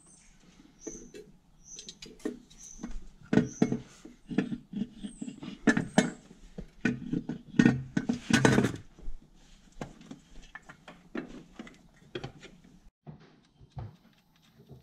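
Irregular clicks, knocks and light clatter of hands and tools working on hoses and wiring in an engine bay, with a quick run of rattling strokes about eight seconds in and a few short high squeaks in the first few seconds.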